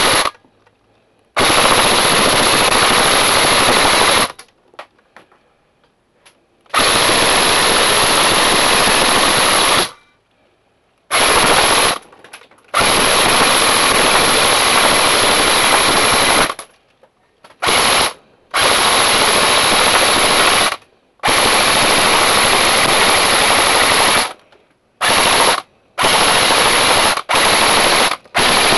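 Airsoft M4 rifle firing full-auto into a cardboard target in about ten bursts of up to four seconds each, with short pauses between them; the bursts near the end are shorter. This is a test run of a newly wound magazine, and it is feeding BBs continuously.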